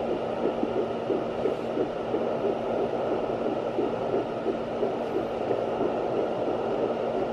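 Fetal heartbeat heard through a handheld fetal Doppler's speaker: a fast, evenly repeating pulse over a steady hiss and a low hum.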